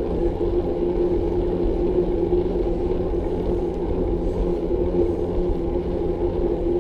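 Steady low rumble with a constant hum: the riding noise of a bicycle on the road, picked up by the rider's camera.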